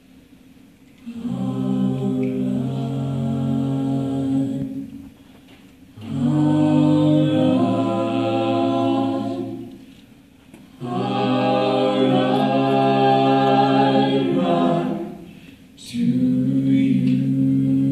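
Mixed five-voice a cappella group singing into microphones: sustained chords in four phrases of about four seconds each, with short pauses between them.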